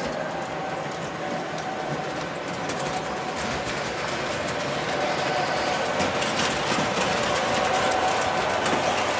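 Electric model train running on its track: a steady motor whirr with rapid fine clicking of wheels over the rails, slowly growing louder.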